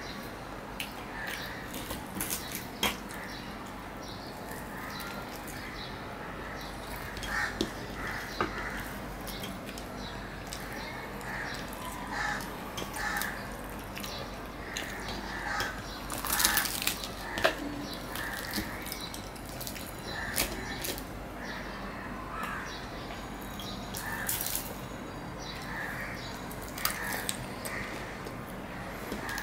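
Close-up eating sounds of a man eating luchi and vegetable curry by hand: wet chewing, lip smacks and the soft tearing of the fried bread, with clicks of fingers on a steel plate. A bird calls repeatedly in the background.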